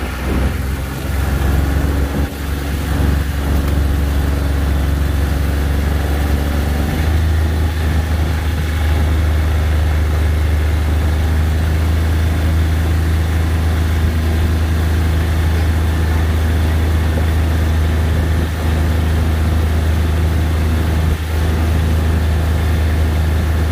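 Side-by-side utility vehicle's engine running steadily while driving, a deep continuous drone that grows stronger about seven seconds in.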